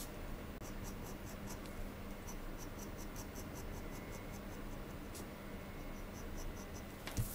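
Steel nib of a dip pen scratching on paper in quick short strokes, several a second, as it inks hatch lines. A single sharp knock comes near the end.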